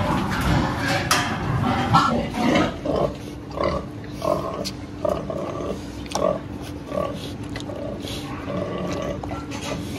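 Pigs grunting: a louder jumble of grunts in the first few seconds, then single short grunts every half second or so over a steady low hum.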